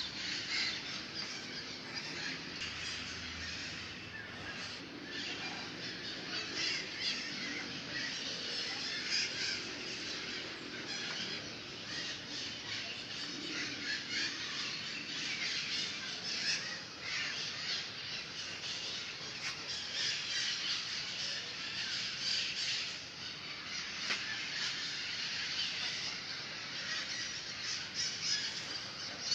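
A chorus of many birds calling and singing at once, a dense, continuous mix of short chirps and calls.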